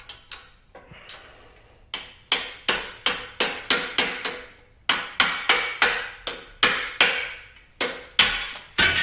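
Hammer driving a long screwdriver used as a punch to knock a bolt out of a motorcycle frame. Quick, ringing metal-on-metal blows, about three a second, come in two runs with a short pause between them, then a few last strikes and a clatter near the end.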